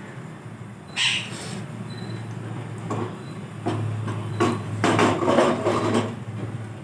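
Egg-dipped bread slices frying in oil in a flat pan, sizzling. A sharp clack comes about a second in, then from about three seconds in a run of scraping and knocking as the pan is shifted on the gas stove's grate and a slotted spatula pushes the slices, loudest near five seconds.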